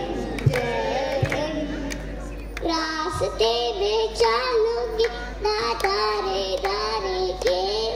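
A young girl singing solo into a microphone, holding long notes that waver in pitch, with a short pause between phrases a little past two seconds in.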